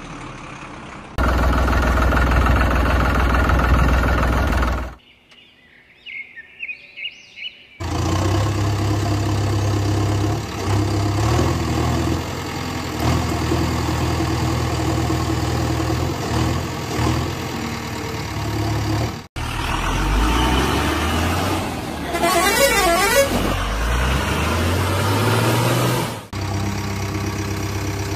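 Spliced heavy-vehicle sound effects: an engine running and a horn honking, cutting abruptly from one clip to the next several times.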